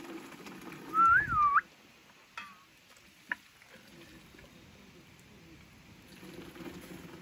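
Hot liquor ladled into a plastic jerry can: about a second in, one pour splashes in with a gurgling whistle that dips and then rises. Two light clicks follow near the middle, then a faint low steady sound.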